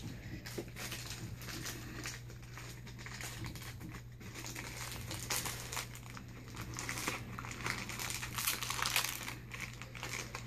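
Packaging of a small mystery figure crinkling and rustling as it is torn open by hand, in irregular bursts that grow busier in the second half.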